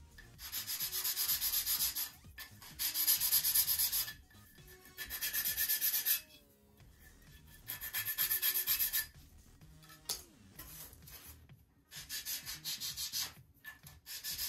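Hand sanding of a small wooden model part with sandpaper: five runs of fast back-and-forth strokes, each lasting a second or so, with short pauses between them.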